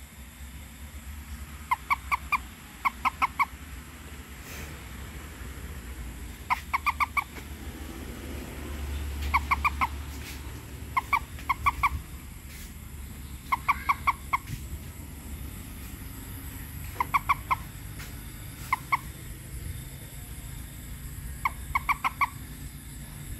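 Frog calling at night: short clusters of three or four quick, evenly spaced notes, repeated about every one to three seconds through the whole stretch.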